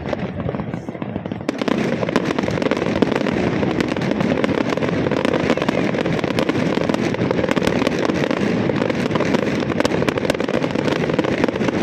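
Fireworks going off in rapid succession: a dense, unbroken crackle of pops and bangs that thickens about a second and a half in.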